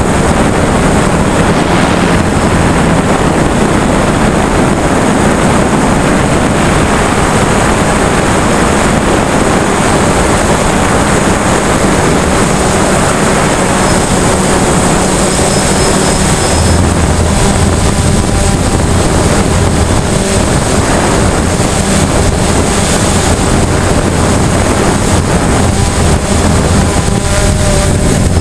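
DJI Phantom quadcopter's electric motors and propellers, heard loud and close from the camera on the aircraft: a steady buzzing rush with an even hum. The hum shifts slightly a little over halfway through as the drone manoeuvres.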